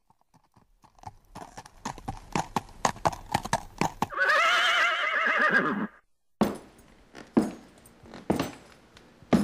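Horse hooves clip-clopping, then a horse whinnies for about two seconds, the call quavering and dropping in pitch at the end, followed by a few more scattered hoof clops.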